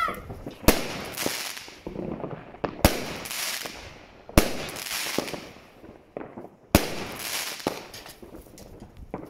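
Multi-shot consumer firework cake firing: four sharp bangs of shells bursting overhead, a second and a half to two seconds apart, each followed by a crackling hiss as the stars spread.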